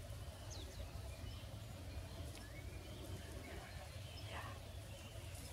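Quiet outdoor evening ambience: a steady low rumble with a few faint, short bird calls, one about half a second in and a longer wavering one about four seconds in.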